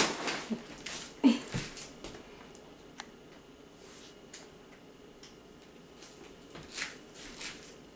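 Faint rustling, light taps and clicks of grocery packets being handled and set down on a kitchen counter, with a brief louder knock a little over a second in.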